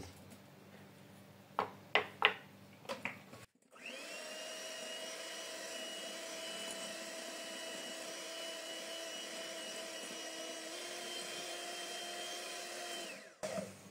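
Electric hand mixer running at a steady speed, its beaters whisking eggs and sugar in a glass bowl until the mixture turns pale. It starts about four seconds in, after a few short knocks, and cuts off just before the end.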